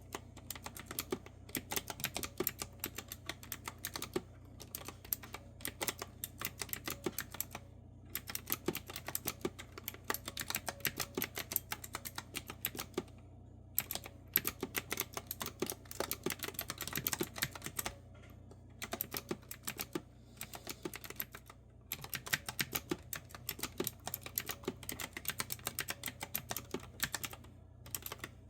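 Typing on a clicky retro-style keyboard with round keys: quick runs of sharp key clicks, broken every few seconds by a brief pause.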